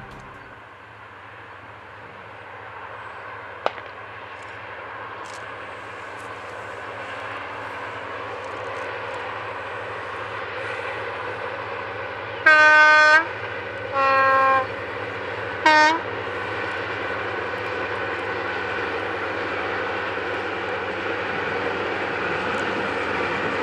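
Napier-engined Class 55 Deltic diesel locomotive D9009 Alycidon approaching with a train of coaches, its engine note growing steadily louder. Its two-tone horn is sounded three times in the middle: a high blast, a lower blast, then a short high one.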